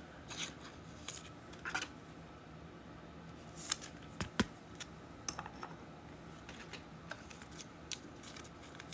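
Faint scattered clicks and light scrapes of trading cards being handled and shuffled through by hand, with a couple of sharper clicks about four seconds in.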